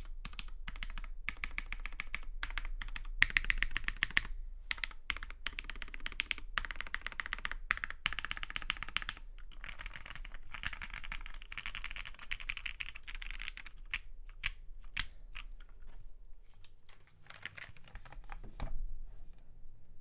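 Typing on a Matrix 8XV2.0 Add mechanical keyboard with lubed Cherry MX retooled black linear switches on an aluminium plate: a fast, steady clatter of keystrokes that thins to scattered presses in the last few seconds, with a louder flurry near the end.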